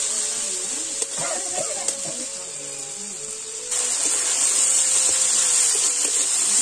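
Spiced mutton mixture sizzling in hot oil in a large metal kadai while a metal spatula stirs and scrapes it, with a couple of light clicks from the spatula. The sizzle gets louder a little past halfway.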